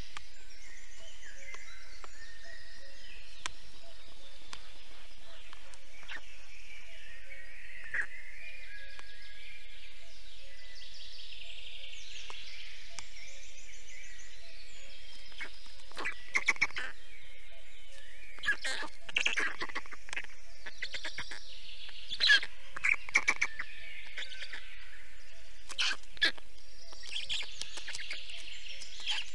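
Forest songbirds singing and chirping, with a faint steady hum underneath. In the second half, short sharp clicks and knocks come in small clusters and are the loudest sounds.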